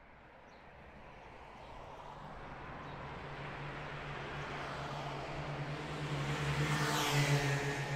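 A vehicle approaching, its engine and road noise growing steadily louder, then sweeping past about seven seconds in.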